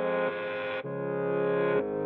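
Background music: sustained synthesizer chords that change every half-second to a second.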